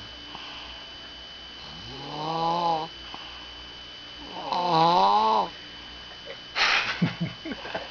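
A sleeper snoring: two long pitched snores about two seconds apart, each lasting about a second and wavering in pitch, then a short rough noisy breath near the end.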